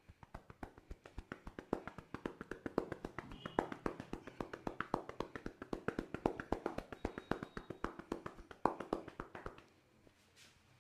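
Rapid, even tapping of hands on the head during an Indian head massage, about eight to ten taps a second, stopping near the end.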